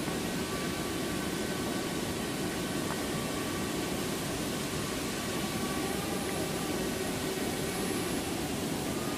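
Waterfall's falling water: a steady, even rush.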